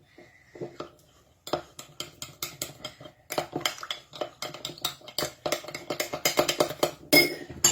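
Metal spoon stirring honey into lemon juice in a glass, a quick run of light clinks against the glass, about five a second, starting about a second and a half in.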